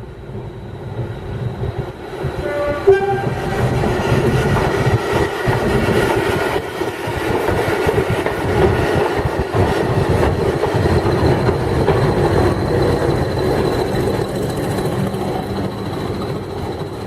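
Railway train running past, its rumble building over the first few seconds, holding, then easing near the end, with a short whistle or horn note about three seconds in.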